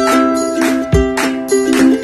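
Background music: an instrumental tune in held notes over a steady beat, with a low thump about once a second.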